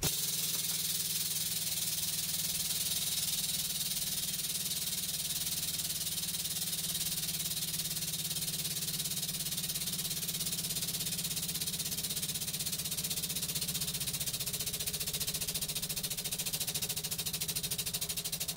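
Hydraulic press pump running steadily while the ram slowly presses down on a roll of bubble wrap: an even, rapid pulsing drone with a bright hiss over it.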